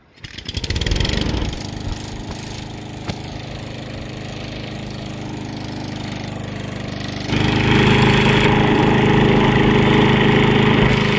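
Walk-behind lawnmower's small engine starting, catching within the first second or so and settling into a steady run. About seven seconds in it gets suddenly louder and stays there. It runs fine, though a sheared flywheel had been suspected.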